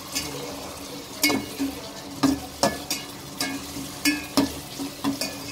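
Metal ladle stirring tomato-onion masala in a stainless steel pot. It knocks and scrapes against the pot's sides about once a second, each knock with a short metallic ring, over the sizzle of the masala frying as the spices and salt are mixed in.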